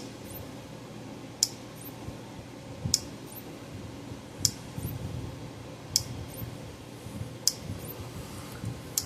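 Power Wizard PW5000XD electric fence charger pulsing: a sharp tick about every one and a half seconds, seven in all. The regular pulses show the charger is putting out power at the wire from its damaged transformer winding.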